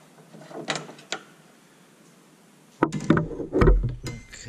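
Clicks and knocks of plastic parts as an LED headlight bulb and its wiring connector are worked loose from the back of a car's headlight housing: two light clicks about a second in, then a loud cluster of knocks and thuds near the end.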